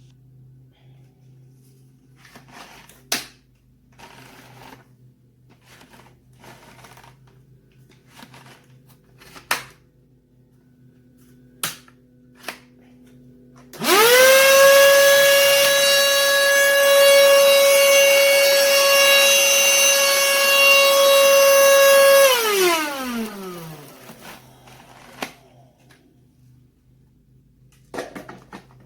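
A BLACK+DECKER cordless handheld vacuum's motor switches on about halfway through, spins up quickly to a steady high whine and runs for about eight seconds. It is then switched off and spins down with falling pitch. Before it there are scattered light clicks and knocks.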